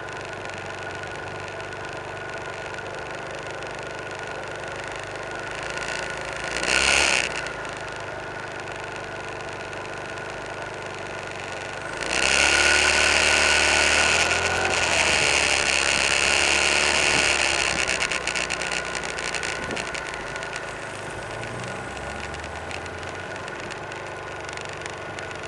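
Car engine and road noise heard from inside a moving car. There is a brief loud burst about seven seconds in, and a louder stretch begins about twelve seconds in, lasts several seconds and then fades.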